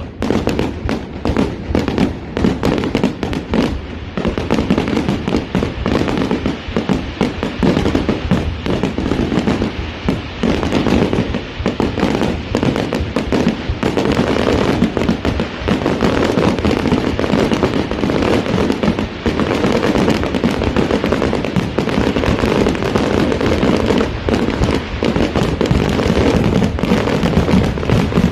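Fireworks display in full barrage: a dense, unbroken run of bangs and crackles, many every second.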